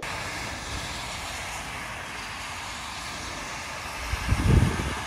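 A motorhome and then a car driving along a wet road, their tyres giving a steady hiss. About four seconds in, a louder, uneven low rumble of wind buffeting the microphone.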